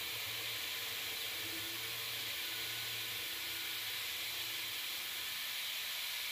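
Steady hiss of a compressed-air blast from a brass nozzle aimed at the end mill while a CNC mill cuts 440C stainless steel, with a faint low hum of the machine underneath that comes and goes.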